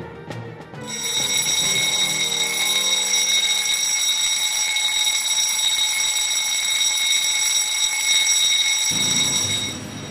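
A steady, shrill, high-pitched electronic tone with overtones comes in about a second in, holds at one pitch, and cuts off suddenly near the end. Fading background music sits under its first couple of seconds.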